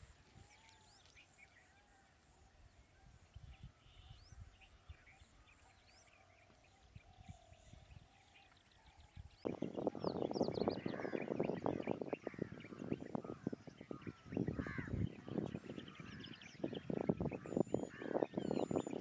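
Birds calling outdoors: a few faint, thin calls at first, then from about nine seconds in a loud, harsh, rapid chattering of many birds with short rising and falling notes.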